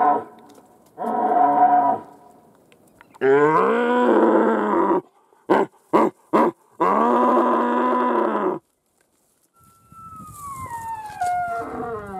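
Wapiti stag calling at close range during the rut: a series of loud, drawn-out bellowing calls about one to two seconds each, with a quick run of four short grunts about halfway through. Near the end comes a fainter high call that glides downward in pitch.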